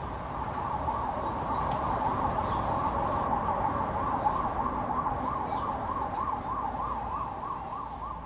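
Emergency vehicle siren sounding in a fast up-and-down warble, getting louder over the first few seconds and fading away near the end, as if passing by.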